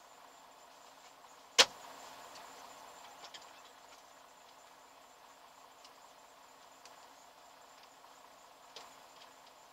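Crickets chirping steadily under a faint low hum, broken about one and a half seconds in by a single sharp, loud click, with a couple of faint clicks later.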